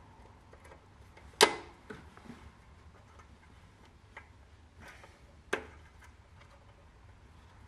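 Sharp metallic clinks of a hand wrench working the bolts of a Saab 900 clutch pressure plate. There are two loud clinks, about a second and a half and five and a half seconds in, with a few fainter taps between.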